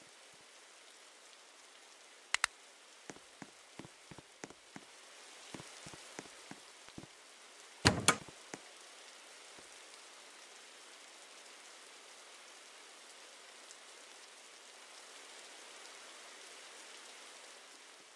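A soft steady hiss with scattered light clicks and taps, and a sharp double knock about eight seconds in, the loudest sound.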